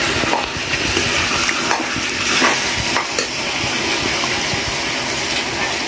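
Chicken pieces frying and sizzling in a steel kadhai, with a metal spoon stirring them and scraping against the pan in short strokes.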